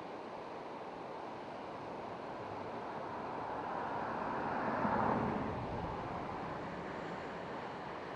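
A vehicle passing by: its noise swells to a peak about five seconds in and then fades, over a steady rushing background noise.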